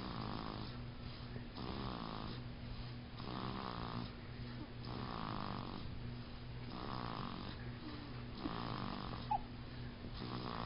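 A sleeping baby snoring heavily, like a grown man, in an even rhythm of one snore about every second and a half to two seconds. A short click sounds near the end.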